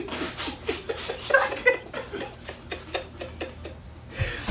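Stifled, muffled laughter and snorts from people holding water in their mouths, breaking into open laughter near the end.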